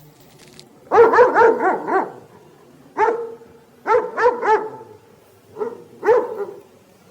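Wolf giving high-pitched yipping barks: a quick run of about six yips about a second in, then shorter groups of one to three, each rising and falling in pitch.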